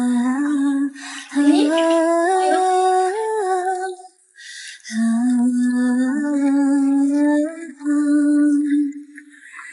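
Background pop song: a woman singing a wordless melody of long held notes, breaking off briefly about four seconds in.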